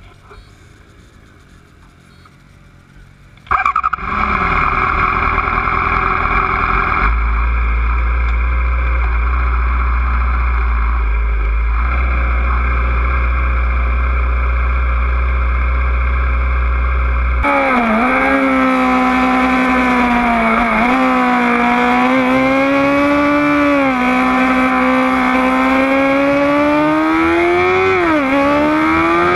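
Sport motorcycle engine heard from the bike itself: it starts about three and a half seconds in and idles steadily. Later it is running hard at speed, its pitch climbing and then dropping sharply at each gear change, three times.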